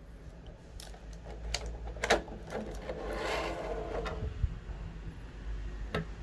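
Hand handling of a boxed action figure and its plastic packaging: a few sharp clicks scattered through, and a crinkling rustle in the middle.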